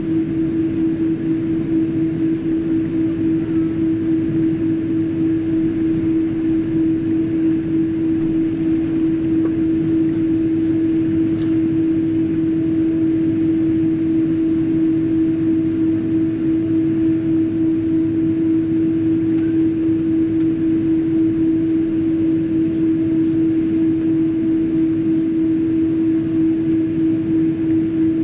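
Cabin noise inside a Boeing 777-200ER taxiing: a steady drone of engines and cabin air with one strong constant hum over a low rumble.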